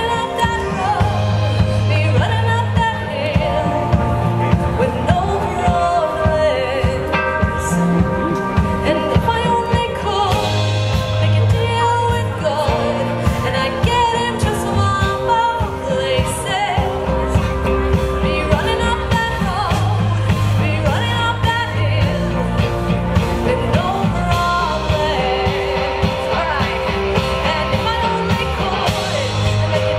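Upbeat pop-rock music with a singing voice and a steady beat.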